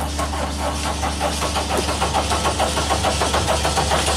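Engine of a four-wheel-drive articulating boom lift running with an even throb that gets stronger about halfway through.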